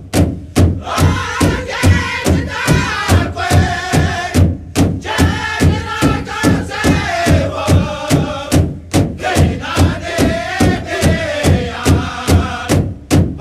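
Powwow drum group singing: a big drum beaten in steady unison, about two to three strokes a second, under high-pitched chanted vocals. The drumming drops out briefly a couple of times.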